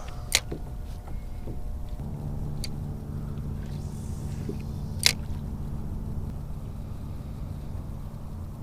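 A steady low motor hum that sets in about two seconds in, with two sharp knocks, one just after the start and one about five seconds in.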